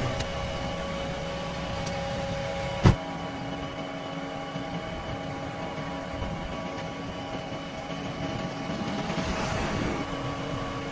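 JCB 3DX backhoe loader's diesel engine running steadily with a steady whine, and a single sharp knock about three seconds in.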